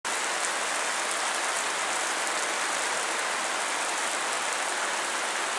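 Heavy rain pouring onto wet pavement and puddles: a steady, dense hiss of falling water.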